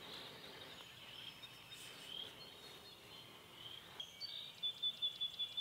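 Quiet woodland ambience: birds calling faintly in the background, with a quick run of short, high chirps near the end.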